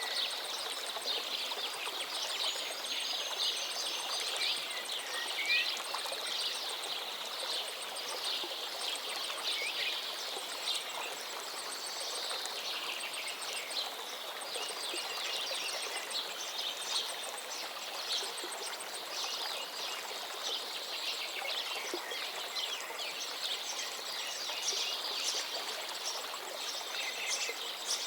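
River water flowing and splashing over stones, a steady rush with small splashes throughout. Birds chirp now and then.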